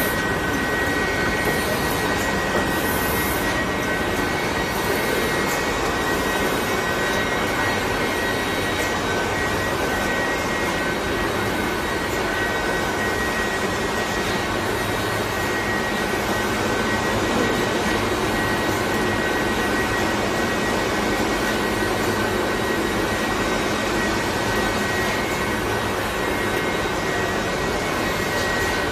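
Heat-transfer printing machinery running: a steady, even rushing noise with two steady high tones over it.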